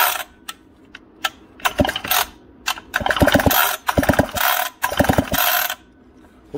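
McCulloch Super Pro 70 chainsaw being pulled over on its recoil starter in a series of short pulls, the engine spinning freely with the spark plug out and grounded against the cylinder to test for spark from a newly fitted electronic ignition module. Each pull is a brief rattling whir, with quiet gaps between.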